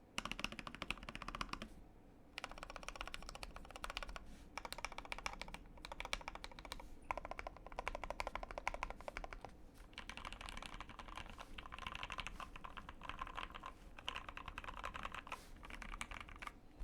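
Fast typing on a custom Tofu84 mechanical keyboard with Gateron Ink Black linear switches, lubed and filmed: a dense run of key presses and the spacebar, with brief pauses about two seconds in and again near seven seconds.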